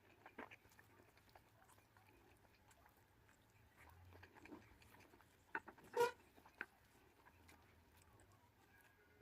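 Quiet mouth sounds of eating: scattered small clicks of chewing, with a short louder mouth sound about six seconds in.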